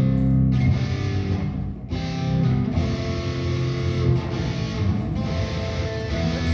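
Live band music led by guitar, played steadily.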